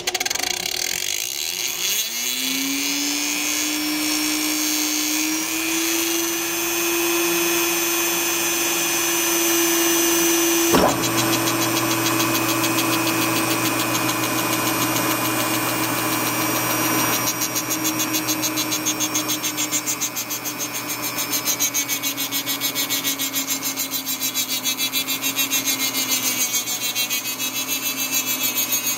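Dremel rotary tool motor spinning up with a rising whine over its first few seconds, then running at a steady high speed. There is a sharp click about eleven seconds in, and the sound pulses unevenly in the last third.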